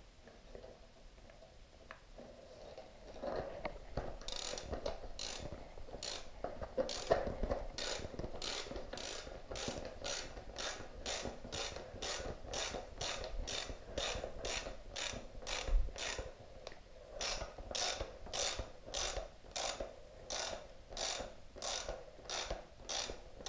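Hand ratchet clicking while it screws a motorcycle fork cap down into the fork tube against the new fork spring. From about four seconds in, short runs of clicks come about twice a second.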